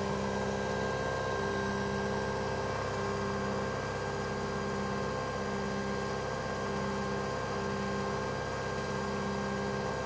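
Nespresso VertuoPlus capsule coffee machine mid-brew, pumping water through a spinning capsule to fill a mug. It makes a steady electric hum with several held tones.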